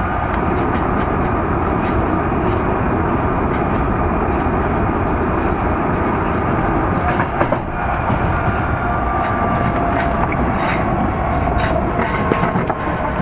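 Osaka Metro 30000 series subway car running at speed through the tunnel, heard from inside the car: a steady roar of wheels on rail with a faint steady whine. A few sharp clicks of wheels over rail joints come through, the strongest about seven seconds in.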